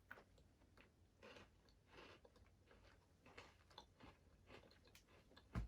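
Faint chewing of a white-chocolate-coated Oreo: soft, irregular little crunches, with one sharper knock near the end.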